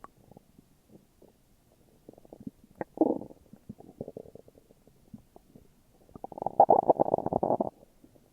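Human stomach growling and gurgling: a short gurgle about three seconds in, a softer one just after, then a longer, louder growl near the end.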